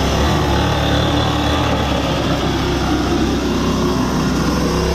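Small engine of a homemade radio-controlled go-kart running steadily as the kart drives along.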